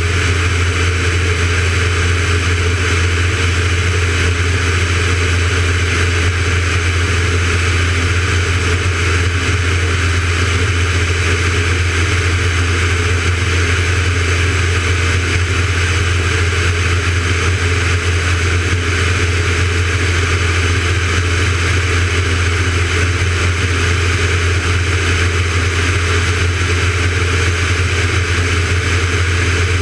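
Van's RV-9A light aircraft's piston engine and propeller droning steadily in cruise flight, with a constant rush of airflow over an exterior-mounted camera.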